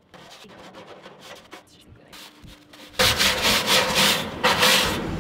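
Hand scrubbing of a gas grill's greasy, degreaser-coated metal firebox with a handheld scrubber, loosening baked-on grease buildup. Faint rubbing at first, then loud back-and-forth scrubbing strokes from about three seconds in.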